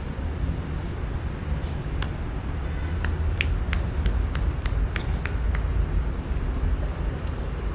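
Steady low outdoor rumble, with a quick run of about eight sharp clicks in the middle.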